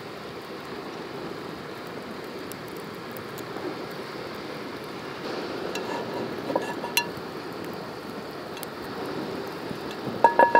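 Small wood campfire crackling with scattered sharp snaps under a frying pan. Near the end the metal pan is lifted and knocks against the stones in a few quick ringing clinks.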